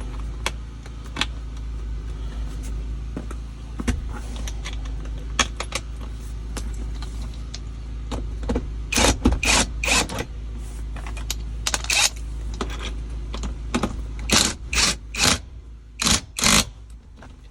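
Sharp metallic clinks and rattles as the handbrake cable and its assembly are pulled and worked into place to line up the bolt holes, over a low steady hum. The clinks are scattered at first, then come in quick loud groups in the second half.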